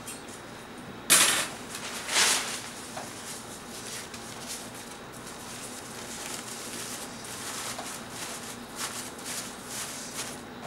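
Crepe paper rustling and crinkling as sheets are laid over wooden sticks and pressed down into a plastic tub, with a sharper crackle about a second in and another about two seconds in, then lighter rustles.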